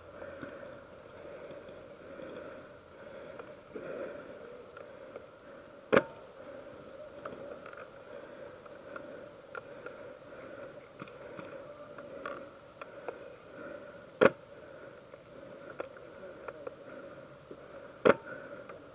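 Three sharp single reports from a PSG-1-style rifle: one about six seconds in, one about eight seconds later and one about four seconds after that. A steady hum lies underneath.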